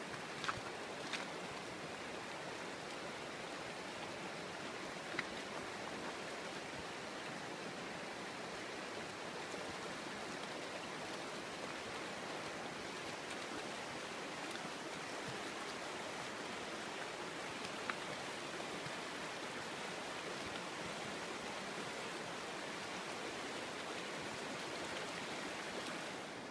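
Shallow river rushing steadily over stones, with a few short clicks now and then.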